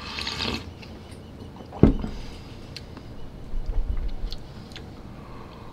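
A sip of iced coffee from a stainless steel tumbler at the start, then a single sharp thump about two seconds in. After that come faint scattered clicks and low handling rumbles as the tumbler is lowered.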